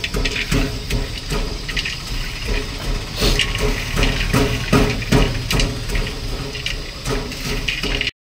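Metal pestle pounding roasted peanuts in a steel pot, a steady rhythm of about two sharp strikes a second.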